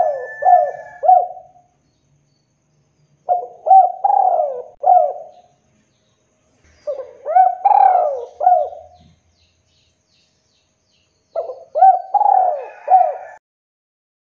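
Spotted dove (tekukur) cooing: the end of one phrase at the start, then three more phrases about four seconds apart, each a run of four or five short, throaty coos, with silence between.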